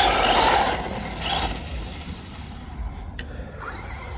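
Arrma Typhon 3S RC buggy running, a rush of motor and tyre noise that is loudest at the start and fades over the first two seconds, with one sharp click about three seconds in.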